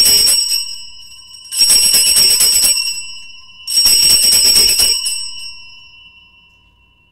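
Altar bells shaken in three peals about two seconds apart, marking the elevation of the consecrated host. Each peal is a rapid jingle with ringing tones that carry on after it, and the last fades out over a couple of seconds.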